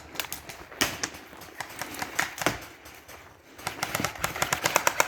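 Airsoft guns firing: scattered single shots at first, then a rapid full-auto string of about ten sharp clicks a second starting a little past halfway.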